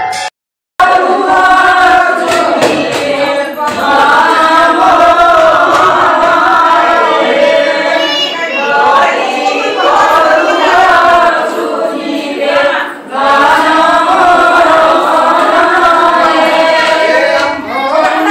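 A group of men and women singing a devotional hymn together, led from a prayer book, with many voices blending into one continuous chant. A brief dropout less than a second in.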